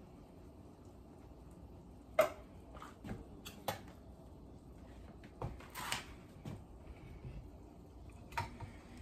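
Kitchen cookware being handled: a run of short metallic clinks and knocks from pots, a pot lid and a can. The sharpest and loudest comes about two seconds in, and the rest are scattered through the remaining seconds.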